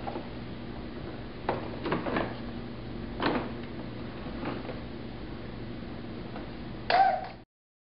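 Blue plastic ride-on toy being pushed across a hardwood floor by a crawling baby: a few short knocks and scrapes over a steady low hum. A brief louder sound comes near the end, and then the sound cuts off abruptly.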